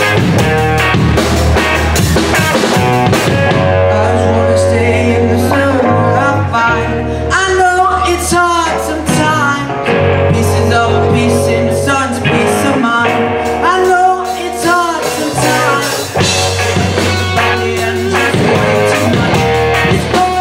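Live rock band playing with electric guitars, bass guitar and drum kit, heard through the stage PA. A male lead vocal sings over it from about a third of the way in.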